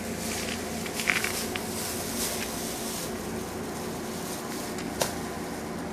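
Steady low machine hum, with a few short knocks and rustles: a cluster about a second in and one sharp knock near five seconds.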